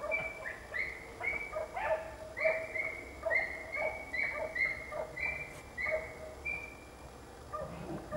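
Dachshund baying at a wild boar: a quick run of short, high-pitched barks, two or three a second, that stops about six and a half seconds in.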